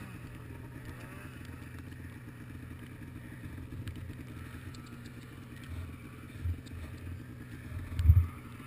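Polaris Pro RMK snowmobile's two-stroke engine settling from a rev to a low, steady run. A few dull low thumps come through, the loudest about eight seconds in.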